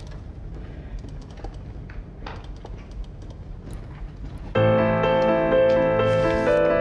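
Faint scattered small clicks over a low background, then about four and a half seconds in, soft background music starts abruptly: sustained keyboard chords and notes, piano-like.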